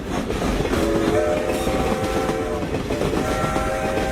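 Train running with a steady low rumble and clatter, and its horn sounding a held chord twice, about two seconds each: once about a second in and again near the end.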